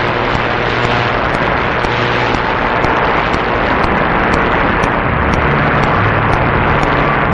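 Loud, steady hiss and static of weak mediumwave (AM) radio reception on 1170 kHz, with faint low tones of the station's signal coming through the noise in the second half.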